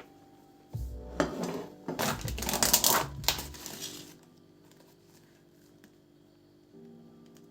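A few seconds of clattering and rustling from objects being handled, over soft background music.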